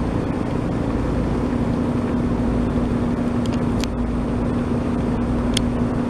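Boat motor running steadily with a constant low hum, and a few short high chirps over it about three and a half and five and a half seconds in.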